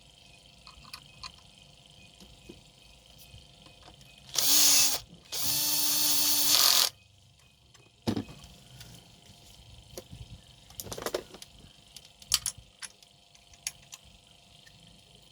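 A small power tool's motor runs in two short bursts, the first about half a second and the second about a second and a half, during blade changing on a hand planer. Scattered clicks and knocks of tools being handled follow.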